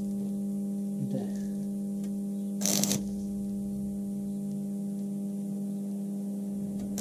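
MIG welder humming steadily, with one short burst of welding arc about two and a half seconds in as a tack weld is laid on the sheet-steel body of a Volkswagen T3 van.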